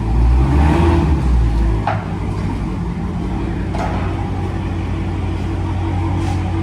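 Dodge Challenger Hellcat's supercharged 6.2-litre V8 running on a nearly straight-piped exhaust (resonator and mid-muffler deleted). It swells louder for about the first two seconds, then settles into a steady low idle rumble.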